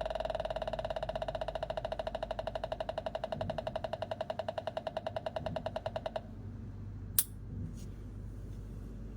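Electronic sound device for attracting goldfish sending out a rapidly pulsing, buzzy mid-pitched tone that cuts off suddenly about six seconds in. About a second later comes a sharp click, then a fainter one.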